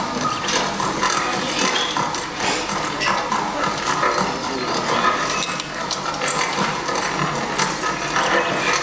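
Film soundtrack heard through a hall's loudspeakers: a horse carrying an armoured rider moving over rough, rocky ground, with irregular clattering and knocks.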